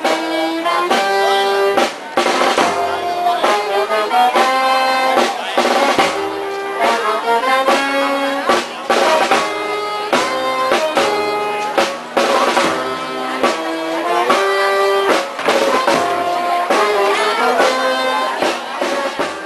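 Brass band playing a mournful processional march: held brass chords over regular drum strokes.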